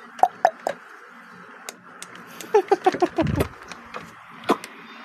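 A small child making short mouth sounds: a few sharp clicks, then a quick run of short high chirping notes that fall in pitch, and another click near the end.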